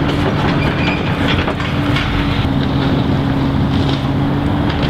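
Steady low mechanical hum, like an engine or motor running, over a broad rumbling noise.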